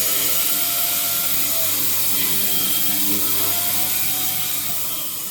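XH7132 CNC milling machine running its demonstration program: a steady hiss under several motor whines that glide up and down in pitch as the machine changes speed, turning quieter near the end.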